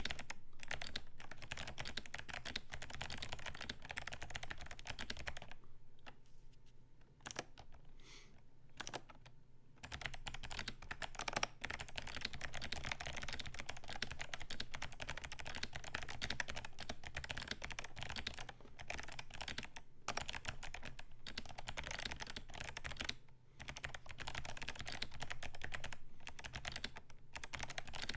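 Fast continuous typing on a Command 65 mechanical keyboard with stock Kailh Box Navy clicky switches, a POM plate and MT3 keycaps: dense sharp clicks, with a few brief pauses between bursts of typing.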